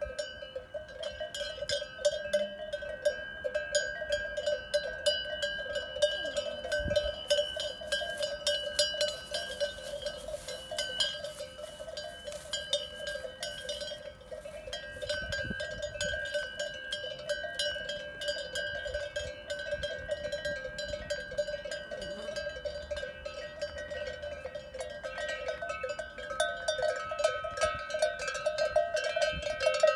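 Cowbells on the collars of walking cows, clanking and ringing without pause as the cows move. A further bell pitch joins near the end.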